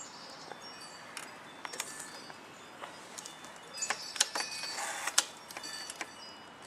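Light metallic clicks and clinks, a few sharp ticks with a brief ring, scattered irregularly and thickest about four to five seconds in.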